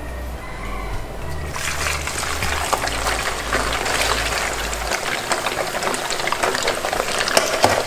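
Small whole fish frying in hot oil in a frying pan: a dense sizzle full of crackles and pops that starts about a second and a half in, as the fish go into the oil.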